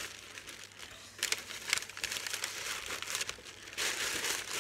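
Tissue paper and magazine pages crinkling and rustling as they are wrapped and squeezed by hand around a bundle of paper flowers, in uneven bursts that are loudest about a second in and near the end.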